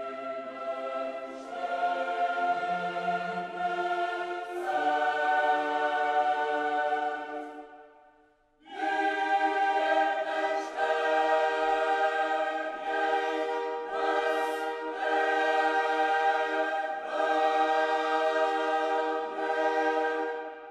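Background choral music: a choir singing long held chords, with a short break about eight seconds in and dying away near the end.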